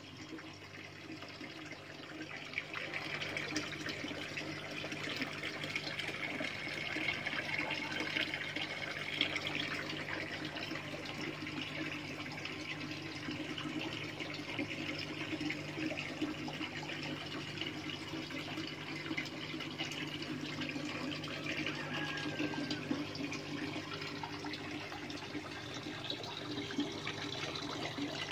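Steady running, trickling water, with a low steady hum underneath, as of water recirculating through a small hydroponic tower.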